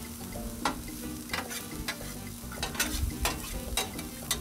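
Diced potatoes and onions sizzling on a Blackstone 22-inch griddle's steel top, while metal spatulas scrape and clack against the plate in short, irregular strokes.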